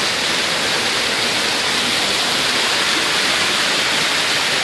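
Water-wall fountain: water cascading down a textured stone wall, a steady, loud rush of falling, splashing water.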